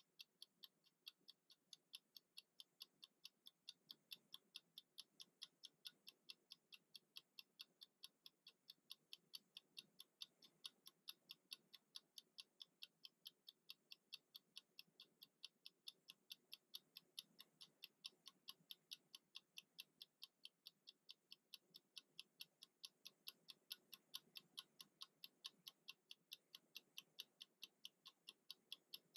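Mechanical kitchen timer with a red countdown disc ticking steadily as it counts down, an even, quick ticking of about three to four ticks a second.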